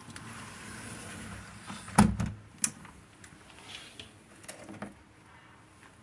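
Steady rain hiss through an open window, then a sliding window shut with a loud thump about two seconds in, after which the rain is much fainter and only a few small clicks follow.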